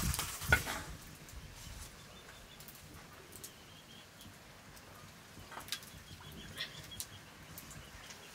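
Light metallic clinks of a ladle against steel plates as rice is served, the sharpest about half a second in, with faint high-pitched chirps in the background.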